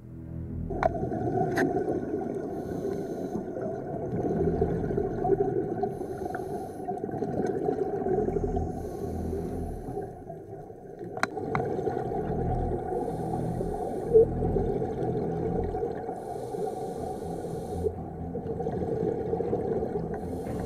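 Underwater sound picked up through a camera housing on a scuba dive: a steady murky rumble, with a scuba regulator hissing faintly every three to four seconds as the diver breathes, and a few sharp clicks.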